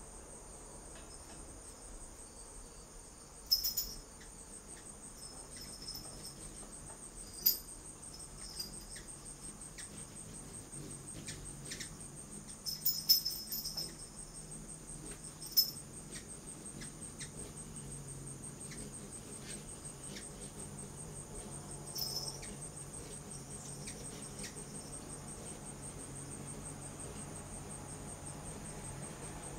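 Steady, pulsing high-pitched trill of insects. Over it come a handful of sharp, very high chirps, the loudest sounds, typical of a hummingbird's chip calls, and in the last several seconds the low hum of a hummingbird's wings grows as it hovers close by at the feeder.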